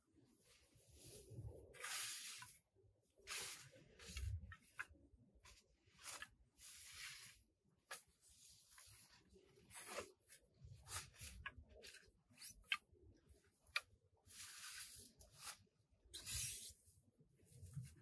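Conifer boughs rustling and swishing as they are laid and pressed onto a frame of sticks: faint, irregular brushing of needles and twigs, with a few sharp clicks in the second half.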